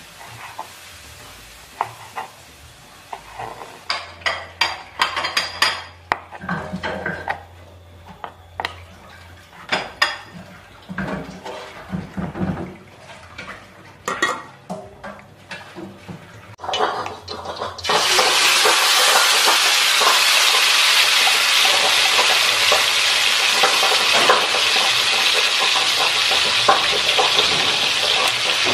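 Kitchen knife chopping fried liver on a wooden cutting board: irregular runs of sharp knocks. About 18 seconds in, this gives way suddenly to loud, steady sizzling of ground chilli paste frying in hot oil in a wok.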